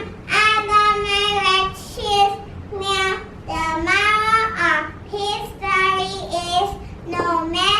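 A young girl singing a simple song alone in a high voice, in short phrases with held notes.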